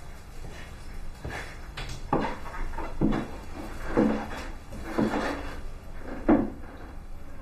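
A series of short household knocks and thuds, about one a second, the loudest near the end.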